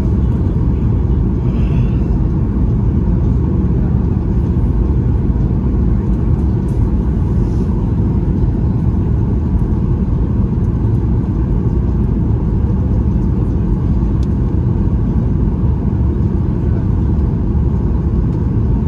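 Steady low rumble of cabin noise inside a Boeing 737-8 MAX airliner in flight: engine and airflow noise holding an even level with no change in pitch.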